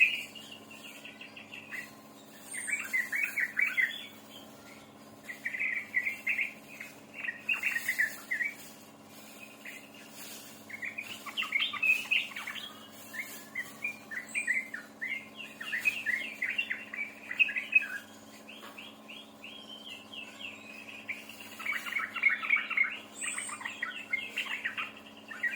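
Songbird singing vigorously in rapid, chattering phrases that come in bursts of a few seconds with short pauses, over a faint steady hum.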